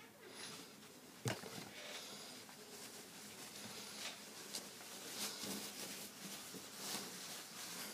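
Faint rustling and brushing of clothing close to the microphone as a man dresses, with one sharp knock about a second in.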